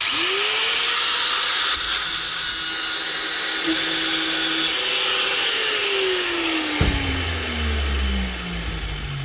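Handheld electric power tool, used to clean metal bright, starts with a quickly rising whine and runs at steady speed for about five seconds. Then it is switched off and winds down, its whine falling slowly. A knock and a low rumble come in about seven seconds in.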